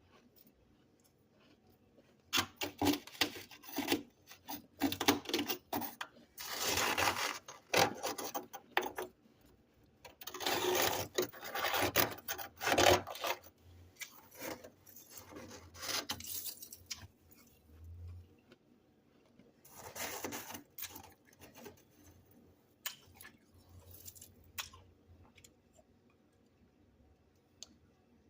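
Fresh freezer frost being scraped off in rasping strokes, in bursts of a few seconds with short pauses between.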